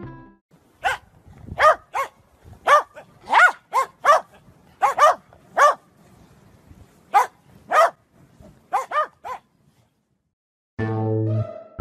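A dog barking in short, high yaps, about fifteen in irregular bursts of one to three, each rising and falling in pitch. It stops with a couple of seconds to go, and music comes in near the end.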